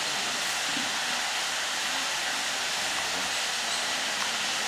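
A steady, unbroken rushing hiss of air noise, with faint indistinct voices murmuring underneath.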